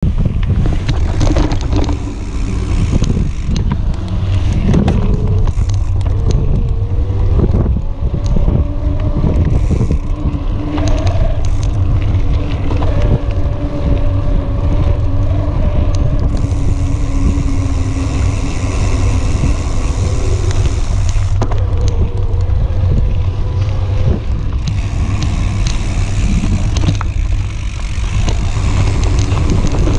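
Electric mountain bike riding a dirt trail, heard from a rear-mounted action camera: heavy wind rumble on the microphone and the knobby rear tyre rolling and crunching over dirt, with a motor whine that rises and falls in pitch.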